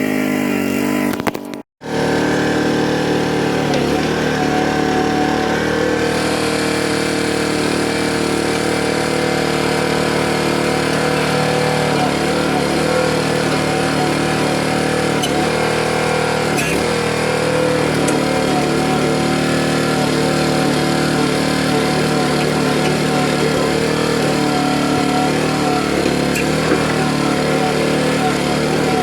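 Small gas engine of a Harbor Freight towable backhoe running steadily while it digs. The sound cuts out briefly about two seconds in and then carries on.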